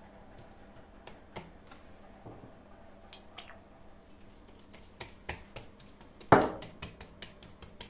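Hands knocking the air out of oiled, sticky pide dough in a bowl: faint scattered slaps and clicks, with one sharp, louder knock about six seconds in.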